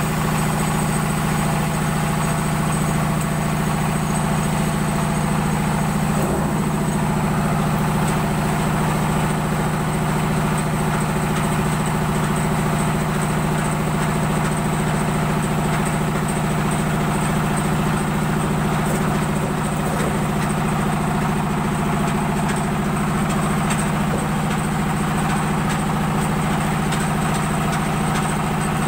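Motorised corn sheller running at a steady speed: the stationary engine and the threshing machine it drives make a constant, unchanging mechanical drone.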